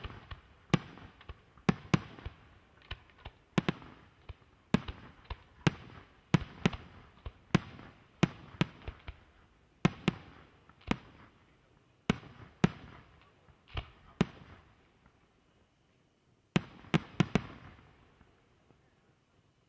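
Aerial firework shells bursting in a rapid series of loud bangs, one or two a second, each echoing briefly. They thin out about two-thirds of the way through, stop for a moment, then a last quick cluster of bangs follows before the sound dies away.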